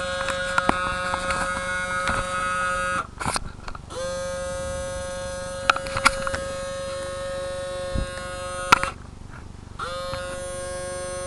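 Small electric motor inside an RCA CMR300 VHS camcorder running with a steady buzzing whine, cutting out briefly twice and starting up again, with light clicks of the mechanism. It is the tape mechanism of a camcorder that will not eject its tape, which the owner blames on a broken belt.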